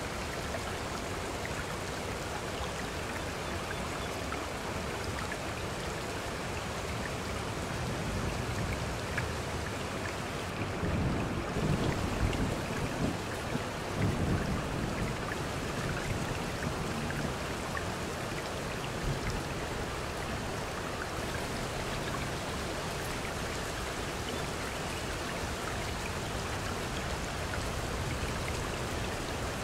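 Steady rain falling, with a low rumble of thunder that swells and fades a little over a third of the way through.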